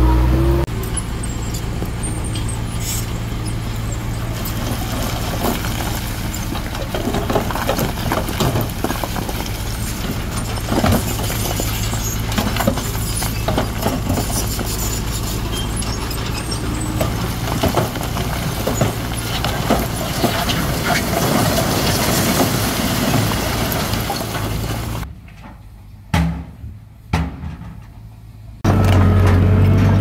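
Heavy earthmoving machinery running steadily, a low engine drone with scattered metallic clanks and squeaks. Near the end the sound drops away for about three seconds, leaving a few knocks, then comes back loud.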